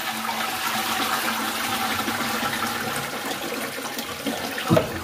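Toilet flushing through a newly fitted Dudley 88 Turbo siphon: water rushes steadily as the cistern empties and the ball-float valve refills it, easing slightly toward the end. The siphon now flushes properly after the repair. A short thump near the end.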